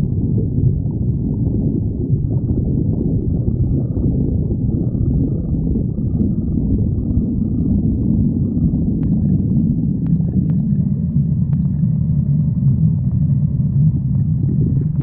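Stomach growling: a steady low rumble that runs on without a break, with a few faint clicks partway through.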